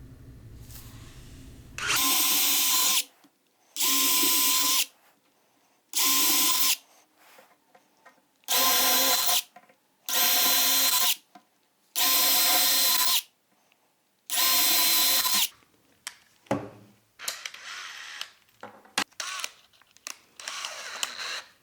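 Power drill pre-drilling holes in plywood for caster mounting bolts: seven short bursts of the drill running, about two seconds apart, then softer brief runs and clicks near the end.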